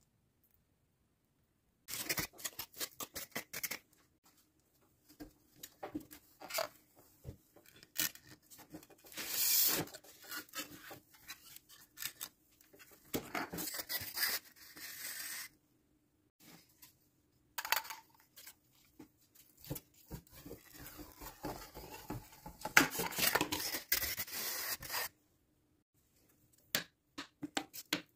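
Hand crafting noises: irregular scraping, rubbing and rustling strokes with sharp little clicks, coming in bursts with a few short silent pauses.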